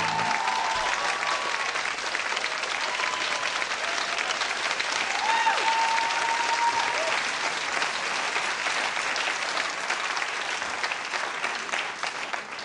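Studio audience applauding and cheering, with a few held shouts over the clapping. The waltz music stops just as the applause begins.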